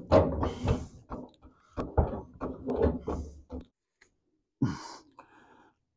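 Irregular knocks and clatter of tools or equipment being handled, then a single thump about four and a half seconds in.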